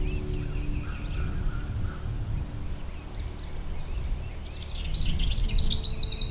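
Songbirds chirping and singing: a few quick high notes at the start, then a dense burst of song from about two-thirds of the way through, over a steady low rumble.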